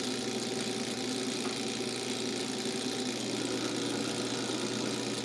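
Electric bench chain grinder's motor running steadily with its wheel spinning free, an even hum with no grinding contact.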